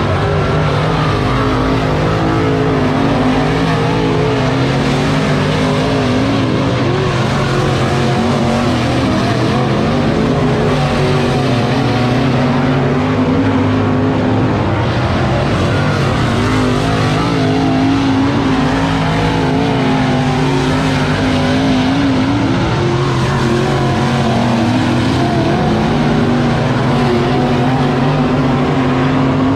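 Dirt late model race cars' V8 engines running hard on a dirt oval, the engine pitch rising and falling over and over as they accelerate and lift.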